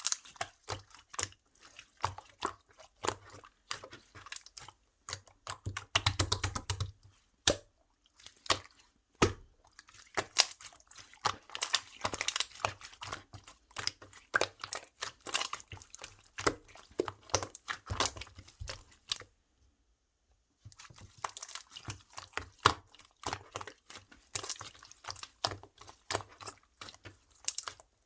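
Clear slime being pressed, stretched and poked by hand: a dense run of sticky, wet clicks and small air-bubble pops, with a short pause about two-thirds of the way through.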